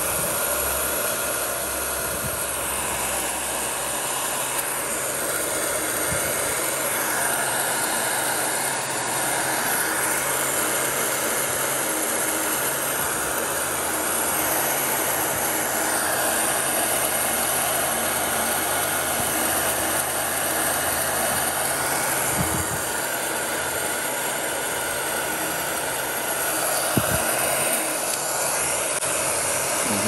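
Electric heat gun running steadily, its fan blowing hot air to shrink marine heat-shrink tubing over wire crimps.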